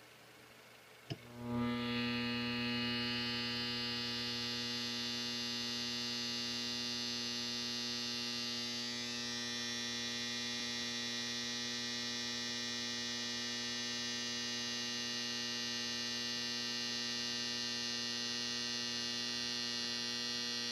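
A click about a second in as the circuit is switched on, then a steady electrical hum with many overtones from the high-voltage pulsed inductor circuit driving a water-electrolysis tube cell, run at over 3,000 volts peak to peak.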